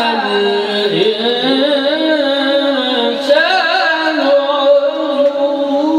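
A man chanting the Quran in melodic recitation, drawing out the words of one verse in long held notes that waver and slide in pitch, his voice alone with no instruments.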